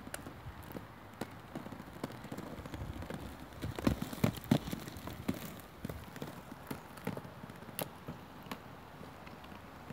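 Inline skate wheels rolling over brick paving, clattering irregularly as they cross the joints, loudest about four seconds in.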